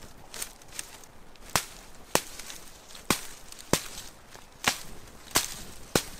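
Wooden mallet knocking on hazel scollops, pinning the liggers down into a water-reed thatch. Two light taps, then a series of about seven sharp knocks, roughly one a second.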